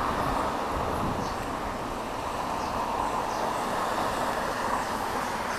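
Steady rushing outdoor street noise, with a low rumble under it and a few faint high chirps.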